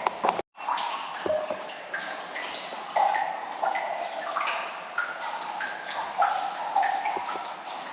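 Water dripping inside a limestone cave: a run of short, pitched plinks several times a second, each ringing briefly, after a sudden cut about half a second in.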